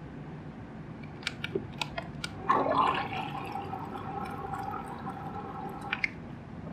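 A few light clicks, then liquid poured into a mug for about three and a half seconds at a steady pitch, stopping with a click.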